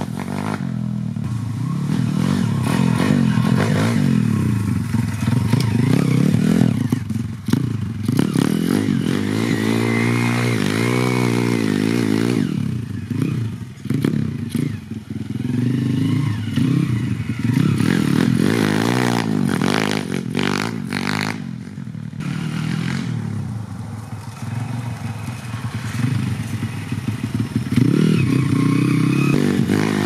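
YCF 150 pit bike's 150cc four-stroke single-cylinder engine being ridden hard, its revs rising and falling again and again as the throttle is opened and shut, with a few short drops to a lower pitch.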